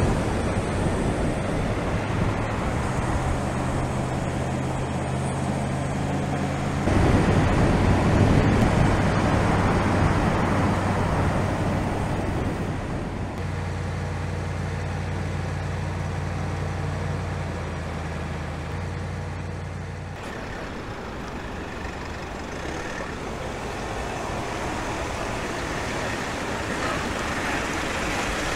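Mercedes-Benz Sprinter van driving: a steady low engine hum under tyre and road noise. The sound rises to its loudest about seven seconds in, and the hum drops away at times.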